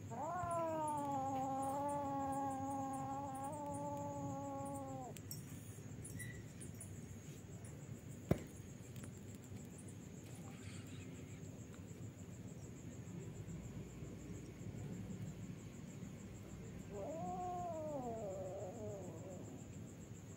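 Young cat yowling in a fight standoff: one long, drawn-out yowl lasting about five seconds, then a shorter yowl that rises and falls near the end. A single sharp click comes about eight seconds in.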